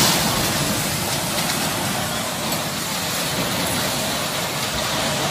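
A multi-storey house collapsing: a dense, steady roar of crumbling masonry and rubble, loudest at the start and easing off slightly.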